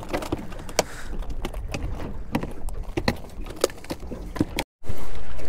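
Scattered light clicks and knocks of a caught whiting, hook and line being handled over a plastic bucket in an aluminium boat. About five seconds in, a steady low wind rumble on the microphone takes over.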